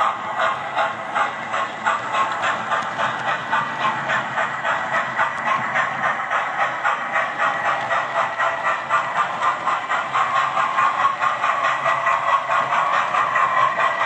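Hornby OO-gauge A4 model locomotive's TTS sound decoder playing steam-engine chuffs through its small onboard speaker as it runs: a steady beat of about three chuffs a second.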